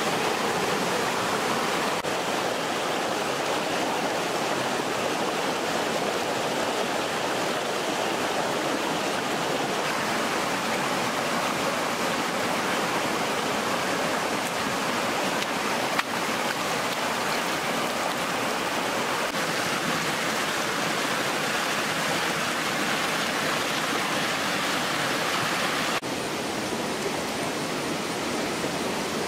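Stream water rushing steadily over rocks, a constant hiss.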